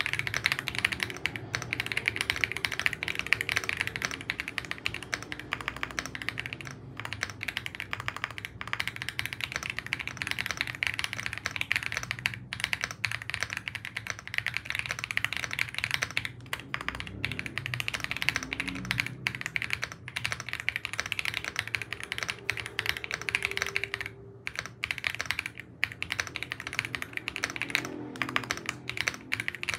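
Fast, continuous typing on an AULA F75 gasket-mount mechanical keyboard with Leobog Reaper switches, sitting on a mousepad that damps the wooden desk beneath. The keystrokes sound clacky with a little pop, and the stream breaks for a few short pauses before stopping near the end.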